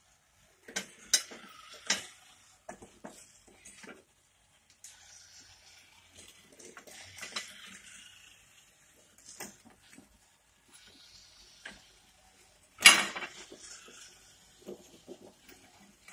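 Small wooden mobile robot built from two four-bar linkages clattering over loose wooden boards and tiles: irregular knocks and clicks of wood striking wood and tile, with one loud knock about thirteen seconds in.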